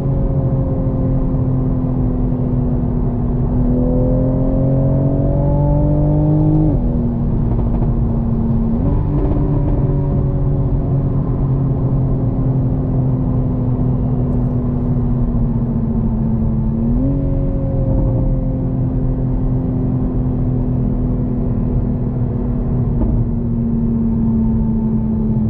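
The 2020 Toyota Supra GR's 3.0-litre turbocharged inline-six, heard from inside the cabin while the car slows on light throttle, with tyre and road noise underneath. Its pitch drifts steadily lower, climbs briefly and drops suddenly about seven seconds in, and jumps up twice, at about nine and seventeen seconds, as the eight-speed automatic downshifts.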